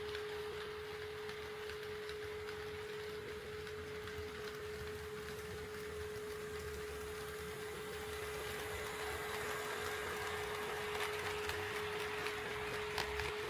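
HO-scale model train running on the track, its rolling noise growing louder in the second half with light clicks of wheels over rail joints. A steady hum holds one pitch throughout.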